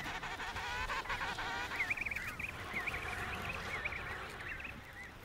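Emperor penguins calling: several overlapping warbling calls, with high, wavering whistles from about two seconds in.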